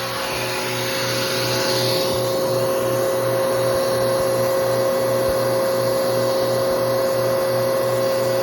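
Bissell Powerforce Helix upright vacuum cleaner running steadily, with a high steady motor whine over an even, rhythmic low pulsing.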